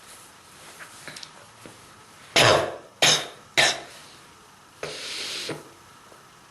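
A person coughing hard three times in quick succession, about half a second apart, then a softer breathy sound lasting about half a second; a deep chest cough from strong bronchitis.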